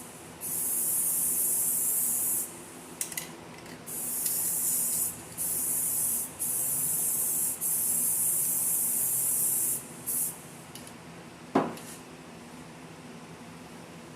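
Aerosol rattle can of rust-inhibiting primer spraying in about six separate bursts of one to two seconds each, stopping about ten seconds in. A single sharp knock follows a little later.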